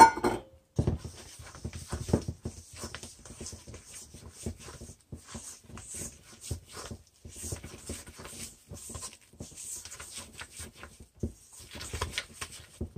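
A spatula stirring stiff cookie dough in a stainless steel mixing bowl: irregular scraping and knocking against the bowl's side, several strokes a second, after a sharp knock at the very start.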